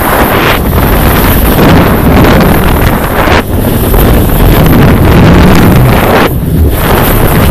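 Wind buffeting the microphone of a camera carried downhill by a moving skier: a loud, steady rushing noise that eases in the upper range for a moment about halfway through and again near the end.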